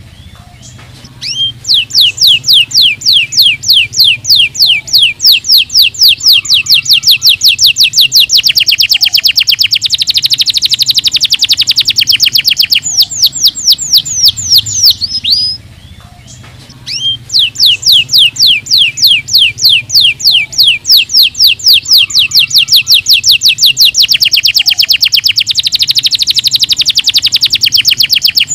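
Domestic canary singing: long, rapid trills of repeated high sweeping notes, each phrase running about fourteen seconds, with a short pause at the start and another about halfway through.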